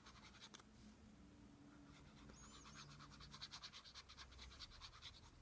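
Faint, rapid back-and-forth rubbing of glue being spread onto paper, several strokes a second, starting about two seconds in.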